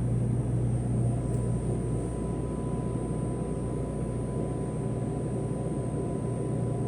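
Hot-drink vending machine running as it makes a French vanilla cappuccino: a steady low hum, with a thin steady whine that starts about a second in and stops shortly before the end.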